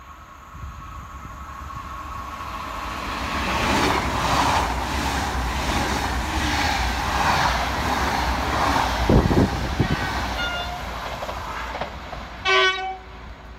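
A three-unit TER 2N NG double-deck electric train passing at speed, a rushing noise that builds up with a rhythmic clatter of wheels over the rail joints. Near the end, a short blast of a train horn.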